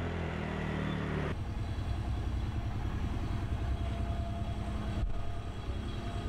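A vehicle engine running with a steady low hum. The background sound changes abruptly about a second in, and there is a brief dip about five seconds in.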